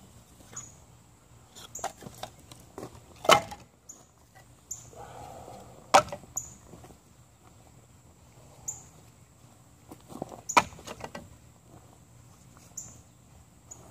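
Sharp wooden knocks and clatter of split kindling being handled and set on a woodpile, with three louder knocks among smaller clicks and a short scrape. A bird's short high chirp repeats every second or two in the background.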